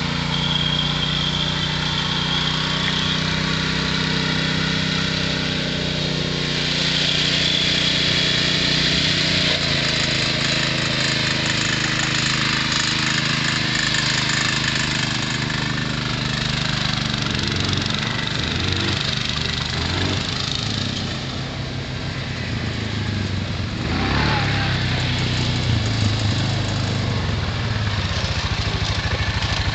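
Small engine of a John Deere garden tractor running steadily as it is driven over dirt humps, its pitch shifting about ten seconds in and wavering up and down later on as the throttle and load change.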